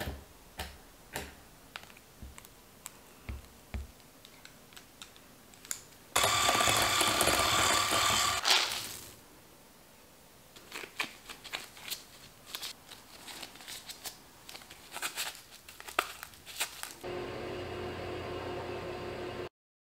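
Kitchen-knife blade chopping pecans on a wooden cutting board, a quick run of sharp taps, then a loud steady motor whir for about two and a half seconds. A silicone spatula then folds chopped pecans into cookie dough in a glass bowl with soft scrapes and knocks. Near the end comes the steady hum of an oven's convection fan.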